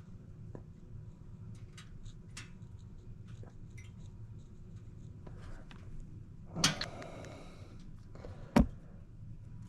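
Small handling noises over a low steady hum: a brief rattle about six and a half seconds in, then a single sharp knock about two seconds later.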